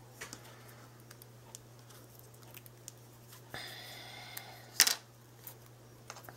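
Light crafting handling sounds as hands work a small black cardstock frame and thread on a cutting mat: scattered soft clicks and rustles, a short scrape with a faint tone, then a sharp double clack just before five seconds in as a small awl is set down on the mat.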